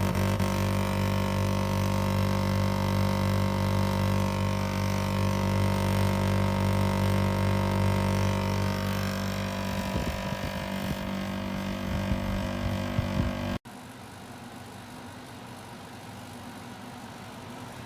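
Olimpia Splendid Dolceclima Compact 10P portable air conditioner running with a steady, loud hum and low drone. About thirteen and a half seconds in it cuts suddenly to a quieter, airier running sound.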